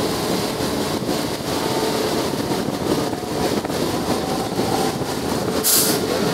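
Train running along the track: a steady rumble and rush of noise, with a short, sharp hiss a little before the end.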